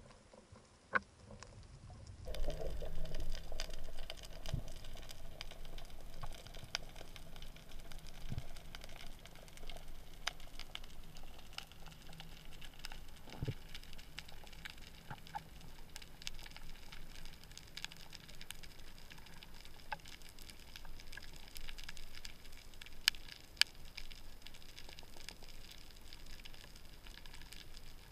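Underwater ambience: a steady crackle of many small, sharp clicks, picked up by a camera underwater over a rocky seabed. It gets louder about two seconds in, and a couple of louder clicks stand out near the end.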